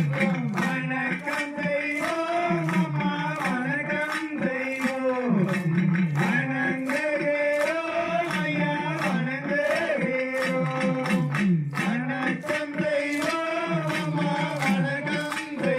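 Oyilattam folk song: male singing over a steady drum beat of about two strikes a second.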